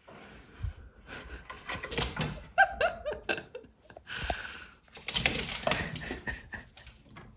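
Kittens moving about on a glass-topped table: scattered clicks, taps and knocks, with a quick run of four short falling squeaks about two and a half seconds in.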